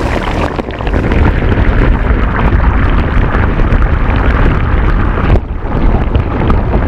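Hot water being poured into a hole in lake ice, heard underwater through a hydrophone as a loud, dense rushing with a deep rumble. It eases for a moment about five seconds in, then picks up again.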